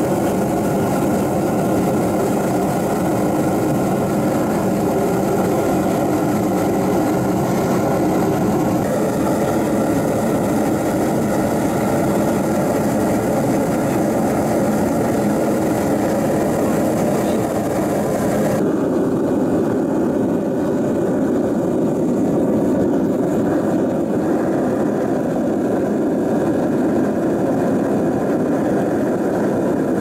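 Homemade gas-fired furnace built from a spin-dryer casing, with a washer-dryer blower feeding its burner, running flat out: a steady, loud rushing of burner flame and fan while it heats brass. The higher hiss drops away about two-thirds of the way through.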